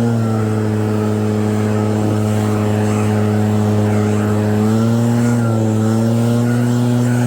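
Engine of an EB7660RED snow-clearing machine running steadily at high speed, its pitch dipping briefly twice, near the start and about five seconds in, then recovering.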